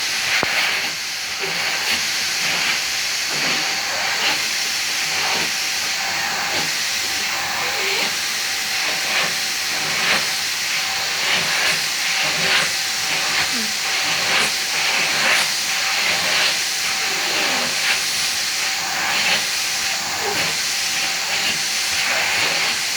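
Vacuum cleaner running steadily: a loud airy hiss over a thin, constant motor whine. The airflow briefly shifts many times at irregular intervals as the nozzle is worked over a cat's fur.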